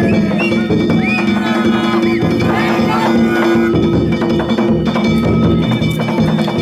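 Danjiri festival music: a drum and small hand gongs struck rapidly and continuously, over steady sustained tones.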